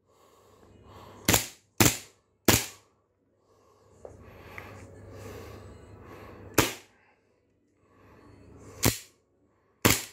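Army Armament R614 (TTI Pit Viper replica) gas blowback airsoft pistol firing single shots, six sharp reports at uneven intervals: three in quick succession, then three more spaced a couple of seconds apart.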